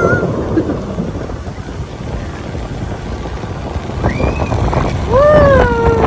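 Wind buffeting a phone's microphone as it rides out of a moving car's open roof, a steady low rumble. A voice lets out a rising-then-falling whoop about four seconds in and a longer falling whoop about a second later.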